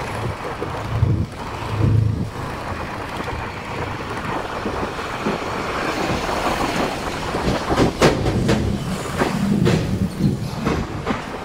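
Motorcycle riding through slow city traffic: the engine running at low speed under steady road and wind noise, with several short clacks about eight seconds in.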